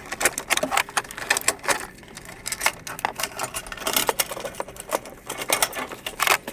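Irregular plastic clicks, taps and scrapes as the 370Z's OEM fuel pump assembly is worked at an angle into the fuel tank opening by gloved hands, a tight fit.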